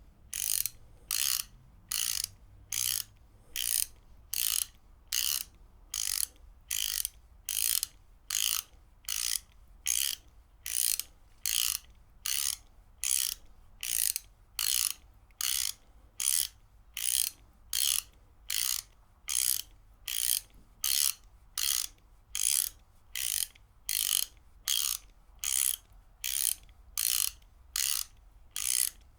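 Ratchet wrench being worked back and forth, its pawl clicking over the gear teeth in short bursts, about three strokes every two seconds, in an even, unbroken rhythm.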